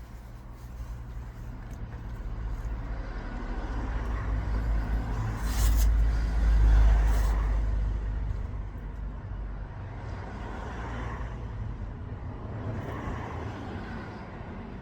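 A motor vehicle passing by: a low rumble that builds, is loudest about six to seven seconds in with a short hiss, then fades away.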